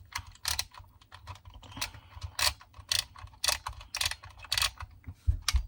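Plastic film camera's film-advance wheel being wound, ratcheting in a run of sharp clicks about two a second.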